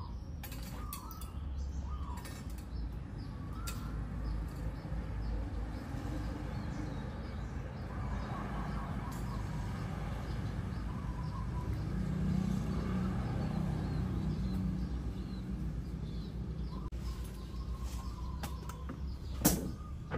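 Street ambience: small birds chirping on and off over a low, steady rumble that swells for a few seconds in the middle, with one sharp knock near the end.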